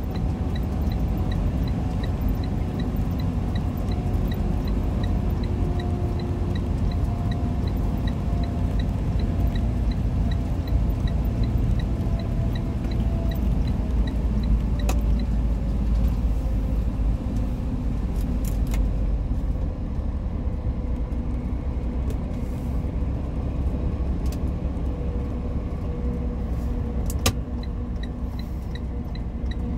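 A truck's engine and road noise heard inside the cab: a steady low rumble, with an engine tone that drops in pitch about halfway through as the truck slows for the ramp curve. A faint, fast, even ticking runs through the first half and returns near the end, and a few sharp clicks or rattles come in the second half.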